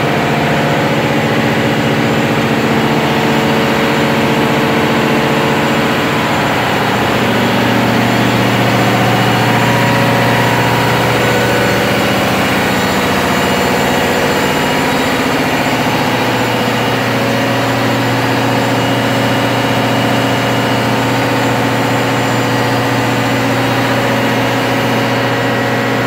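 Loud, steady drone of a ship's marine diesel engine and the port shaft generator it drives, running on load test. The engine tone shifts in pitch a little about six seconds in and again about fifteen seconds in.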